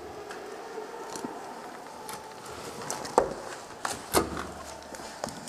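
A few sharp knocks and taps, the two loudest about a second apart just past the middle, over a faint steady hum.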